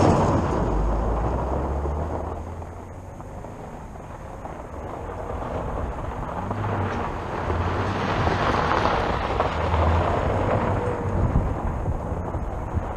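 2018 Subaru WRX's turbocharged flat-four revving hard as the car drives on loose gravel, tyres churning and spraying stones. Loud at first, it fades a couple of seconds in, then builds again through the middle as the car makes another run.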